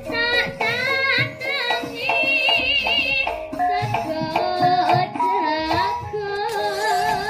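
A young female sinden singing a Javanese song into a microphone, her voice running through fast, wavering ornamented turns over live instrumental accompaniment with drums.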